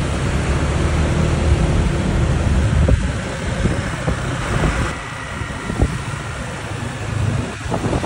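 Loud wind rumble on the microphone mixed with motor scooter riding noise, joined near the end by surf on the shore; the sound shifts a couple of times as short clips change.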